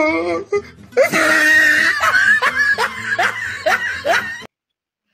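A person laughing: a loud burst of laughter, then a run of short laughs, before the sound cuts off abruptly.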